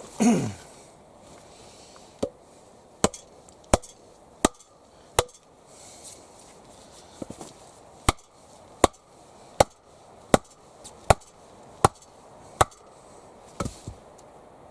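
Sharp blows of a hand tool on wood, steady at about one every three-quarters of a second, in a run of five and then a run of seven after a short pause. A brief falling sound comes just at the start.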